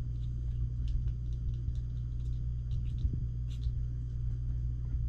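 A steady low hum, with a few faint light clicks and taps.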